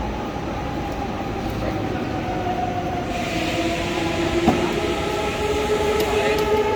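Intercity Express electric train running, a steady noise with a whine of several held tones. About three seconds in a hiss grows louder, and there is a single sharp click about four and a half seconds in.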